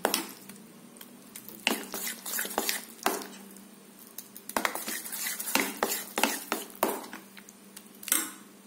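Metal spoon stirring thick, wet semolina cake batter in a metal pan, with irregular clinks and scrapes of the spoon against the pan's bottom and sides and two short pauses.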